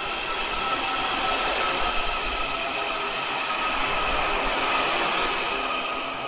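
Washington Metro subway train pulling into a station platform and rolling past, with steady high-pitched tones over the noise of the cars, a little louder in the middle.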